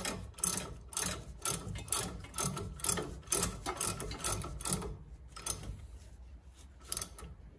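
Ratchet wrench clicking as a small brake-line bracket bolt is tightened, sharp clicks about two a second, thinning out and getting fainter after about five seconds with a few last clicks near the end.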